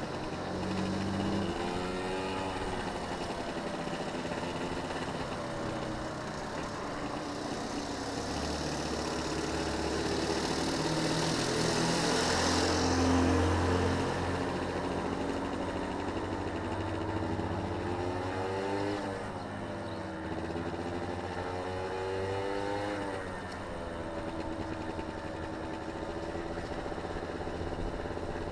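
Small motorcycle engine running, its revs rising and falling every few seconds, with rushing wind noise that swells about halfway through.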